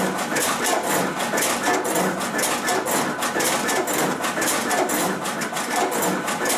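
SCCP B digital slitter/cutter/creaser running a production job, its vacuum feeder pulling sheets in one after another to be slit, cut and creased. The sound is a fast, even mechanical clatter over a steady machine whir.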